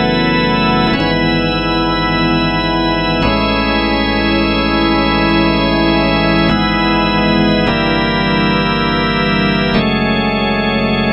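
Casio CTK-4200 arranger keyboard playing an organ voice: sustained chords held for one to three seconds each, changing about five times.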